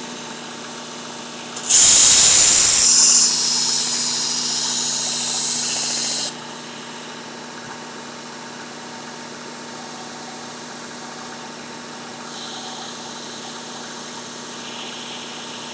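Work Sharp Ken Onion Edition belt sharpener running with a steady motor hum. Starting about two seconds in, a chef knife blade is ground against the coarse belt for about four and a half seconds: a loud grinding pass to raise a burr, which cuts off suddenly. The motor then runs on alone.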